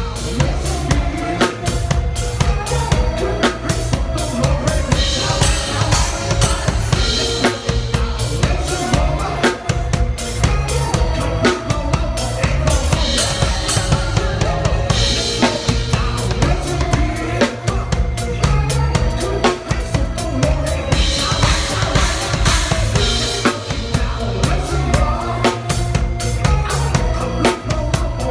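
Drum kit played in a steady pop groove, with bass drum, snare and rimshots, over a recorded backing track that carries the melody.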